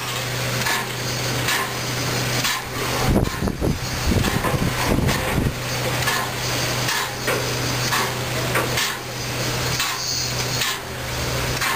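Battle of Britain class steam locomotive standing in steam: a steady hiss with a low hum that breaks off now and then, and a spell of low rumbling about three to five seconds in.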